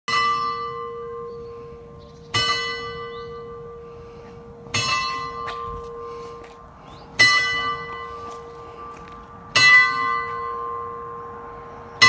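A single tower bell striking slowly, five even strokes about two and a half seconds apart, each ringing on and fading before the next.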